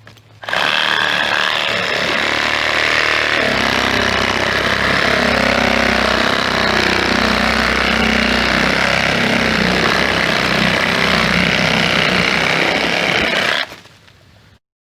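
Power saw cutting through wood, loud and steady for about thirteen seconds after a brief quieter start, then dropping off sharply near the end.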